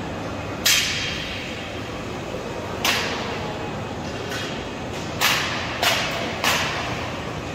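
Five sharp bangs from construction work, at irregular intervals, each echoing in a large, empty warehouse hall over a steady background noise.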